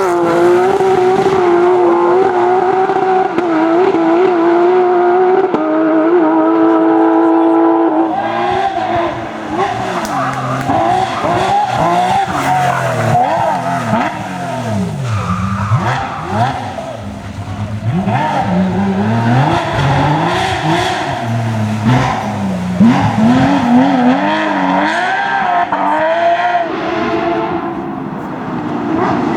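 Porsche racing car engines running at high revs. The note holds steady and high for the first several seconds, then sweeps up and down repeatedly through gear changes and lifts for the rest of the stretch.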